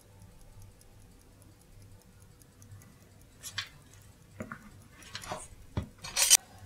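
Serviced 1959 ZChZ aircraft clock movement running, with fast, even ticking at about five ticks a second. In the second half come louder irregular clicks and a scraping rustle of the clock being handled, the loudest just before the end.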